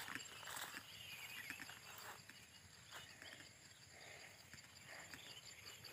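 Faint footsteps on a grassy path, with soft bird chirps and a steady high insect hum in the background.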